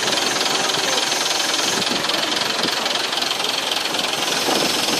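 Boat engine running steadily and loud, close by; the engine is one being treated as faulty.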